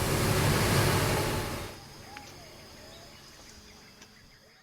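An engine running under a loud rushing noise that cuts away a little under two seconds in, leaving quiet forest ambience: a few short bird chirps over a steady high insect drone.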